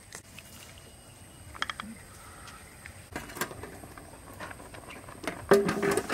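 Light plastic clicks of a hand lime squeezer, then a wok of water boiling over a wood fire; about five and a half seconds in, a large aluminium pot lid is set down with a ringing metallic clank, the loudest sound.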